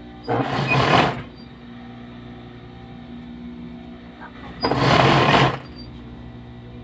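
Straight-stitch sewing machine stitching an edge seam on a T-shirt, run in two short bursts of about a second each: one just after the start, one about two-thirds of the way through. A steady low hum sounds between the bursts.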